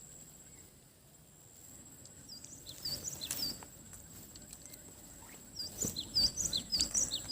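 Small bird calling in quick series of short high chirps, in two bouts: one about two and a half seconds in, and a louder one from about five and a half seconds. A thin steady high tone runs underneath.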